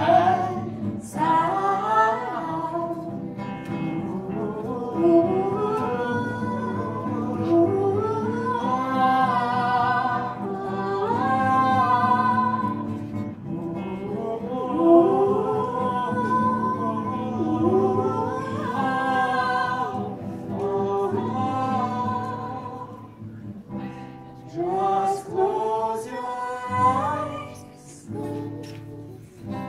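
Live acoustic duet: a steel-string acoustic guitar strummed under a man's and a woman's voices singing, growing softer for a few seconds near the end.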